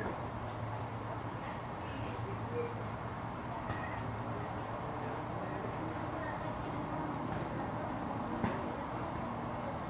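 A steady, high, finely pulsing insect trill over a steady low hum, with one faint knock near the end.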